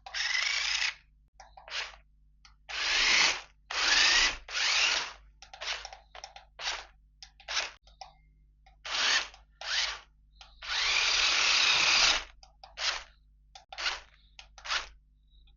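A toy car's small electric motor and gears whirring in stop-start bursts, some brief and some over a second long, the pitch rising a little as the motor spins up.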